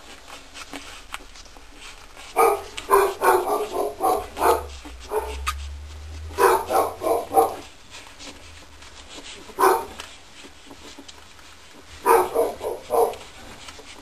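Boxer dog barking in short, quick runs of barks: three runs, with a single bark between the second and the third.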